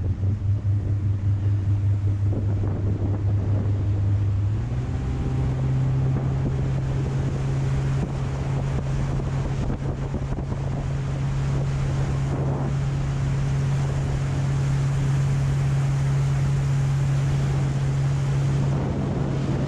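A full-size speedboat's engine running steadily, heard from the helm, its low drone stepping up in pitch about four and a half seconds in as the boat speeds up. Wind buffets the microphone and water rushes past the hull.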